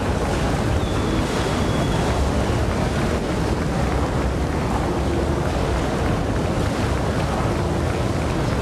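Herrenknecht tunnel boring machine's cutterhead grinding through the last rock at the breakthrough: a steady, dense rumble.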